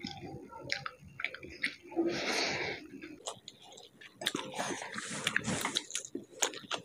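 Close-up chewing and mouth smacking of people eating rice and curry by hand, with many short wet clicks. There is a short rushing sound about two seconds in, and the clicking grows denser in the second half.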